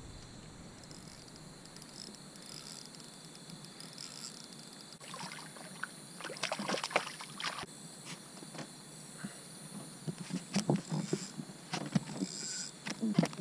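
A hooked fork-tailed catfish splashing at the water surface as it is reeled in, in two bouts of thrashing about 5 and 10 seconds in, ending with the fish flapping on the platform mat. Insects buzz steadily throughout.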